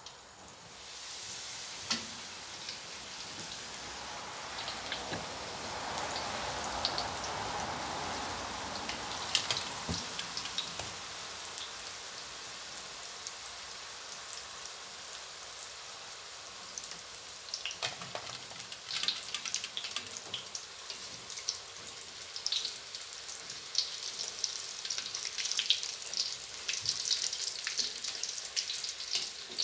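Fish-tofu wontons deep-frying in hot oil in a wok: a steady sizzle that comes up about a second in as they go into the oil, with sharp crackling and popping growing through the second half. Near the end a spatula turns them in the oil.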